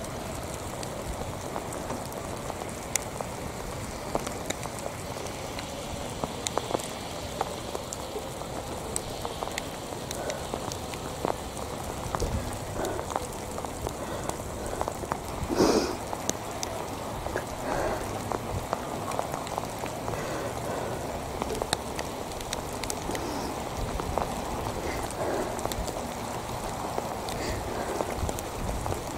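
Rain falling steadily, with many scattered drops ticking sharply close to the microphone. A brief louder noise comes about halfway through.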